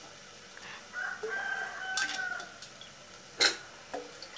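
A rooster crowing in the background, one long held call that falls slightly at its end, about a second in. Two sharp knocks in the aluminium pressure cooker as cut potato pieces go in, the second, louder one near the end.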